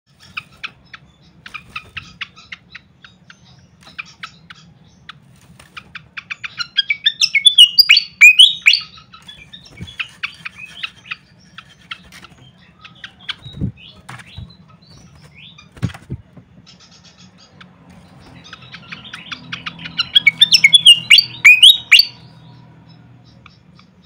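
Malaysian pied fantail singing: strings of sharp, quick chips that build twice into loud bursts of rapid, sweeping twittering notes. Two dull knocks come in the quieter stretch between the bursts.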